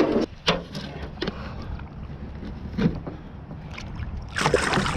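Wind buffeting the microphone as a steady low rumble, with a few sharp knocks scattered through and a louder rustling burst near the end, as from an aluminium john boat and the gear in it.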